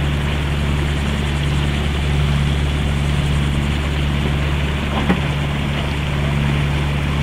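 A boat's engine running steadily under way, a constant low drone heard from on board.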